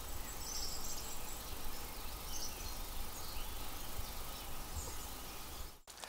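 Quiet forest ambience: a few faint, scattered bird chirps over a low, steady rumble.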